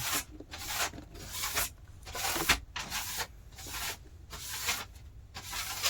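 Repeated scraping strokes worked back and forth by hand, a little over two a second.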